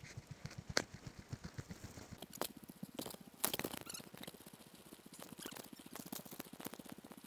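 Raindrops striking the camera, heard as irregular sharp ticks and taps, with a louder cluster about three and a half seconds in.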